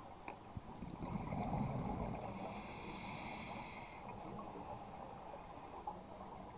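Muffled underwater sound of scuba breathing: a rumble of exhaled regulator bubbles swelling about a second in, with a faint hiss of inhaling through the regulator.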